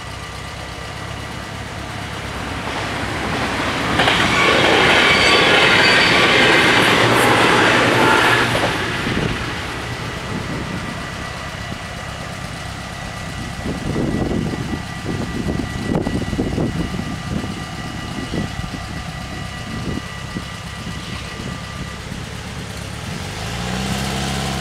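Dutch level-crossing bells ringing steadily while an NS ICMm (Koploper) electric multiple unit passes through the crossing, loudest from about four to eight and a half seconds in. The bells stop a couple of seconds before the end, as the barriers rise.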